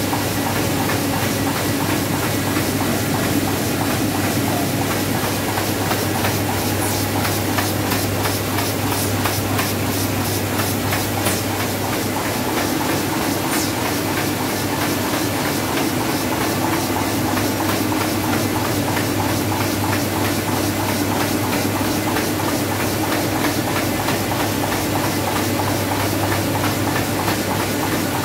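Ryobi four-colour offset printing press running steadily, a constant machine hum with a fast, even clatter.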